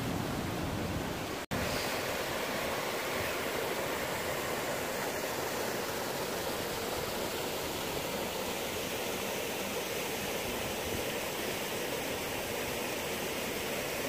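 Steady rush of a river running over rocks and small waterfalls, an even hiss with a brief dropout about a second and a half in.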